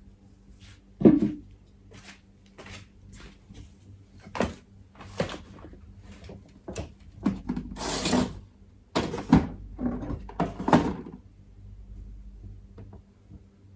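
Objects being handled and moved about by hand: a string of separate knocks and clacks, the loudest about a second in, and a longer scraping rustle about eight seconds in.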